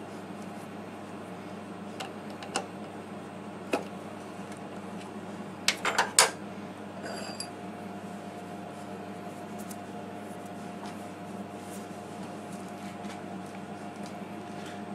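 Sharp metallic clicks and clinks, loudest in a quick cluster about six seconds in, as the finished brass shaft is taken out of the Emco PC50 lathe's three-jaw chuck. A steady hum from the idle lathe runs underneath, and a higher steady tone joins about halfway through.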